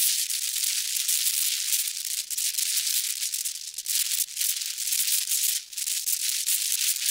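Wind blowing: a steady high hiss with no low rumble, flickering and rustling as it gusts, with a brief lull about five and a half seconds in.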